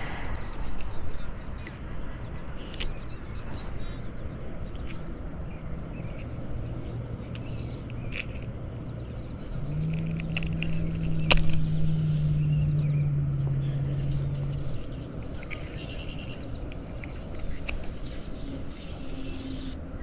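Steady high insect drone, with scattered small clicks and rattles of metal pliers and a fish lip-grip being handled while unhooking a pickerel. A low steady hum comes in about halfway through and lasts about five seconds.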